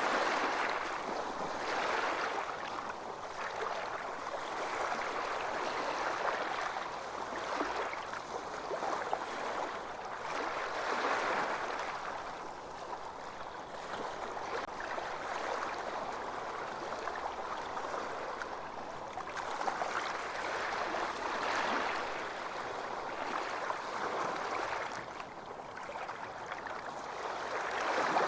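Small sea waves washing onto a beach, a steady hiss of water that swells and fades every few seconds.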